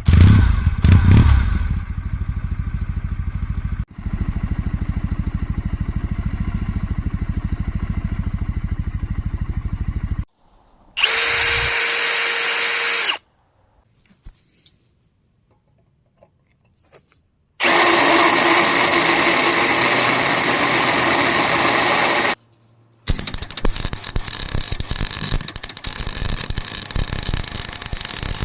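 Kawasaki W650 parallel-twin engine running steadily for about ten seconds after a loud opening burst. This is followed by two separate bursts of a power drill, and a rougher, uneven stretch of running near the end.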